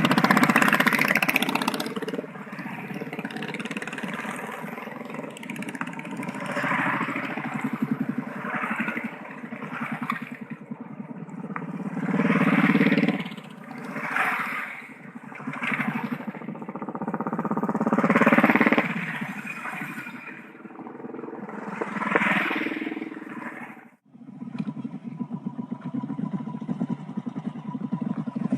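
Royal Enfield Bullet motorcycles' single-cylinder engines running, the exhaust thump rising and falling in several loud swells. The sound drops out abruptly about 24 seconds in, then comes back steadier and quieter.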